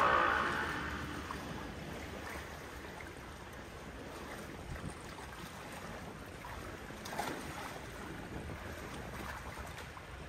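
A motor's engine note fades away over the first second or two, leaving a steady wash of water and wind with a few light clicks.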